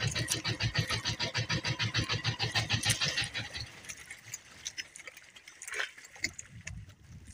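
A small boat engine chugging with quick, even beats, dying away about three to four seconds in. After that only a few faint light knocks remain.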